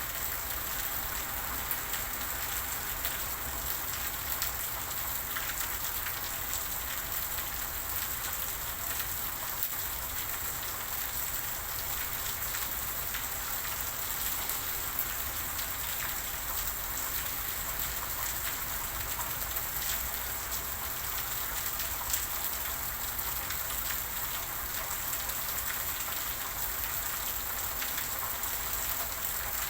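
Steady rain falling and pattering on a surface, with many fine, separate drop ticks.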